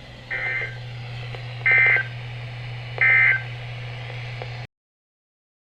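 Emergency Alert System end-of-message signal: three short, buzzy bursts of digital SAME data about a second and a half apart, marking the end of the alert. A steady low hum runs under them and cuts off suddenly near the end.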